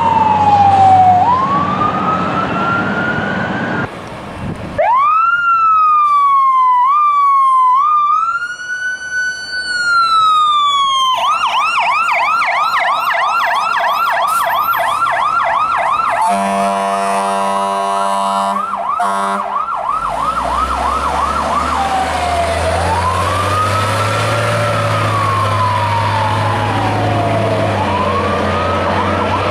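Fire truck sirens, one after another. A slow wail breaks off about four seconds in and is followed by a siren gliding up and down in steps, then a fast yelp from about eleven seconds. An air horn blasts over the yelp for about three seconds, and a slow wail with a heavy engine rumble beneath it follows in the last third.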